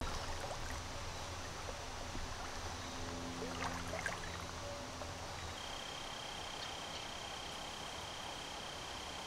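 Woodland ambience beside a creek: a steady hiss of running water with insects. A low hum fades out about halfway, and from then on a thin, steady high insect tone sounds.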